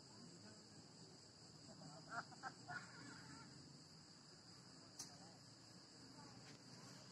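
Faint, steady high-pitched drone of an insect chorus such as crickets, with a few soft short sounds about two seconds in and a single click near five seconds.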